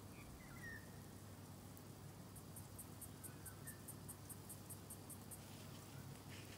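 Faint outdoor ambience with a low steady hum. In the middle an insect chirps in a rapid, even series of high ticks, about five a second, for around three seconds. A couple of faint bird chirps come near the start.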